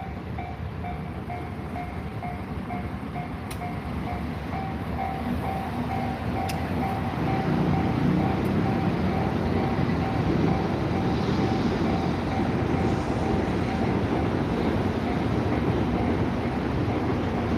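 Japanese level-crossing warning bell ringing in a steady, evenly pulsed rhythm while the barriers are down. About seven seconds in, a passing train's low rumble grows louder beneath it.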